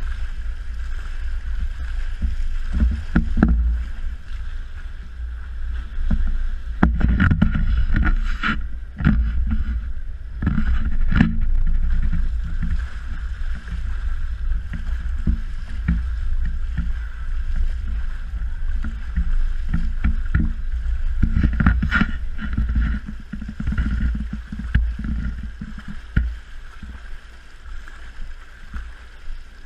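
Water splashing and churning as a swimmer swims backstroke, with sharper splashes from the arm strokes coming in clusters, over a constant low rumble and a steady high hum.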